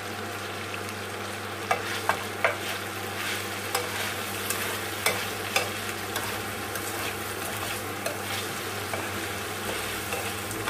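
Chicken and vegetables sizzling in a nonstick frying pan as they are stir-fried with a plastic spatula, the spatula giving sharp clicks and scrapes against the pan, most often in the first half.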